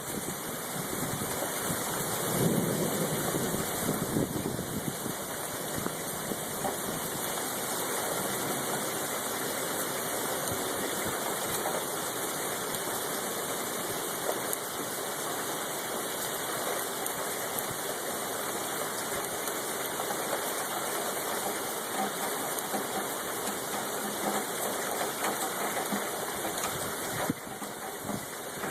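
Sleet falling steadily, a dense hiss of fine ticks, with a brief louder low rumble about two seconds in.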